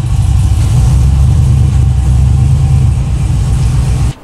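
1968 Chevy C10 pickup engine running just after start-up with a steady, loud, deep exhaust rumble as the truck pulls away; the sound cuts off abruptly about four seconds in.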